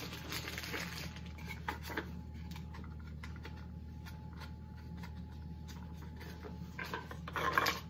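Rustling and crinkling of a bag as hands rummage through it, with many small crackles and clicks, busiest in the first two seconds and again near the end.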